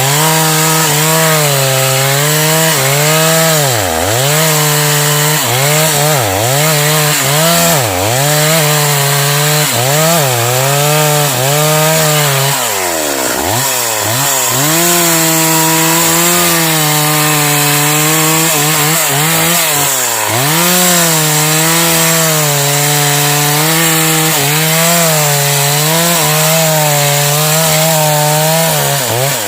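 Stihl MS 381 two-stroke chainsaw running at full throttle while cutting into a tree trunk, its pitch dropping again and again as the chain bogs down in the wood and then climbing back. The deepest drop comes about halfway through.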